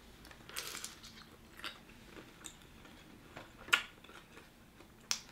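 Wet eating sounds from seafood in Cajun sauce: mouth smacks, chewing and sharp clicks as shells are peeled, the loudest click a little before four seconds in.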